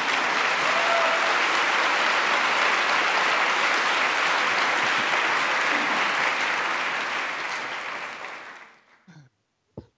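Large audience applauding in a lecture hall, steady and sustained, then dying away about eight to nine seconds in.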